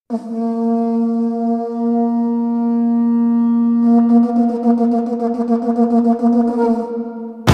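A single long note on a wind instrument, held steady for about seven seconds after an abrupt start, wavering slightly in its second half.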